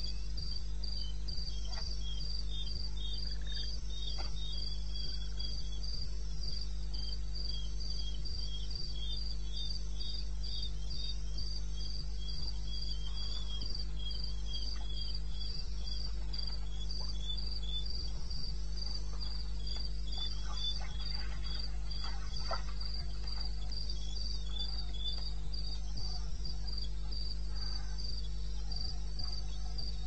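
Crickets chirping: one gives a steady, evenly spaced run of high chirps throughout, while another chirps a little lower in uneven runs. A steady low rumble sits underneath.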